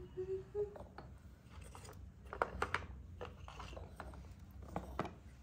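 Pieces of slate clicking and clacking against each other and a plastic tub as they are set in by hand: a string of sharp light taps, bunched in the middle and again near the end.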